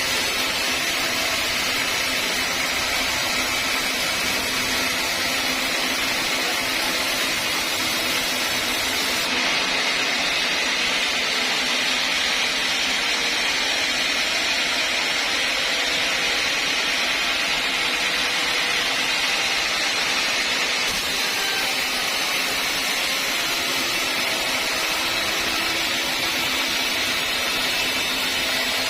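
Sawmill saw running and cutting wood, a steady, unbroken mechanical noise with no change in loudness.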